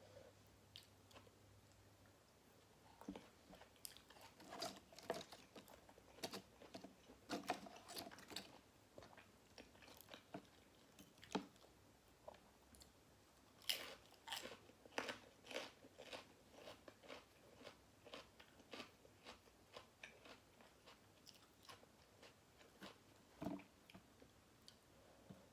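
Close-miked eating: biting and chewing food with crisp crunching, in irregular bites that come thickest in two busier spells.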